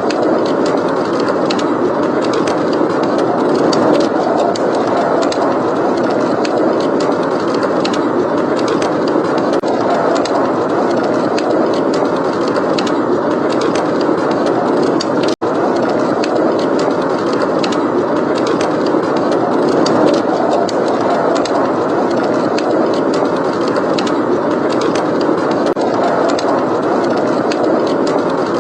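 Blizzard wind blowing steadily, with a wood fire crackling in small sharp snaps over it. About halfway through the sound briefly cuts out for an instant.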